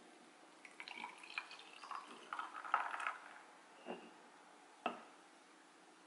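Milk foam poured from a ceramic pitcher over ice cubes in a glass of iced coffee: a run of small splashes with ice clicking and crackling, loudest about three seconds in, then two single clinks near the end.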